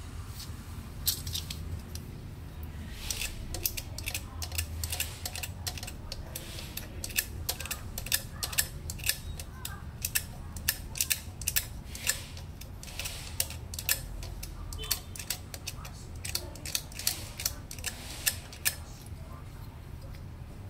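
Irregular sharp clicks and small snaps of metal and plastic as the wire connectors on a UPS's battery terminals are worked loose by hand and with a screwdriver, over a low hum.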